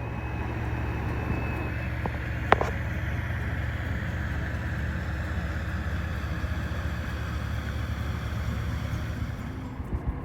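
Heavy construction machinery running steadily with a deep hum, with one sharp clank about two and a half seconds in.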